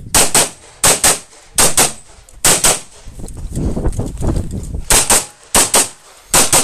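Handgun fired in quick pairs, about fourteen loud shots in seven double taps, heard close from the shooter's own position. There is a gap of about two seconds in the middle before three more pairs.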